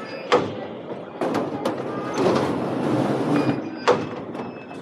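Train on a rail transit line: two sharp knocks about three and a half seconds apart, with a rush of running noise between them.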